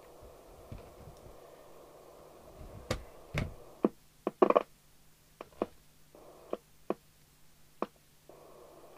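A run of sharp clicks and knocks, about a dozen spread through the second half and loudest near the middle, from handling a CB radio's metal case and the bench equipment around it. Under them a faint steady hiss with a low hum fills the first few seconds, then drops out and comes back in short stretches.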